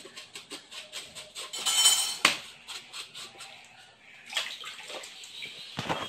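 Kitchen knife scraping rapidly over the slimy skin of a ray on a wooden cutting board, about five to six short strokes a second, to rub off the fish's slime. A sharp knock of the knife against the board a little past two seconds in, and another near the end.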